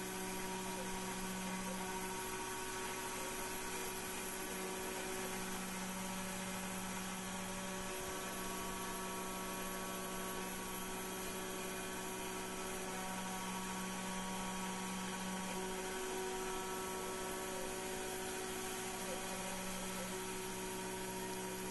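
Taig CNC mill running, its spindle and cutter taking a shallow cut in a 1/4-inch 6061-T6 aluminium blank: a steady whine with a lower hum that swells and fades every few seconds, over the hiss of the air-driven mist coolant.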